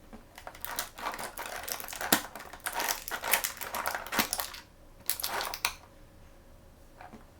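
Plastic blind-bag packaging crinkling as it is handled and opened, in a dense crackly stretch of about four seconds, then a shorter burst and a faint rustle near the end.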